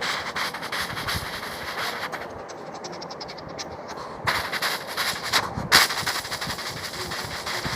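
Vocal imitation of a steam locomotive crossing a bridge: a fast run of rhythmic chuffing and clattering, with two loud hissing surges about four and a half and six seconds in.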